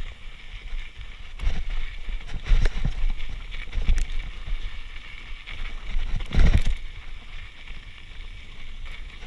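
Mountain bike riding over a dirt and rock trail: a steady hiss of tyres rolling on dirt, broken by several knocks and thumps as the bike rattles over rocks and bumps, the loudest about six and a half seconds in.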